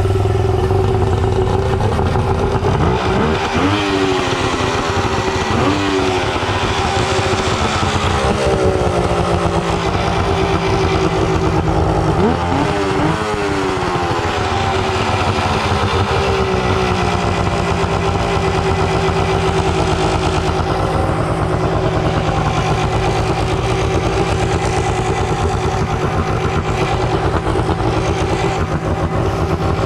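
Suzuki DT65 two-stroke three-cylinder outboard motor running steadily and loudly, blipped up and back down in revs a few times in the first half.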